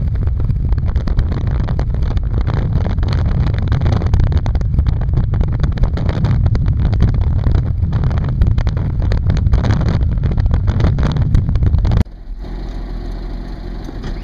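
A small classic car driving on an open road, heard from on board: engine and road noise mixed with wind buffeting the microphone. About twelve seconds in, the sound cuts abruptly to a much quieter, steady low hum.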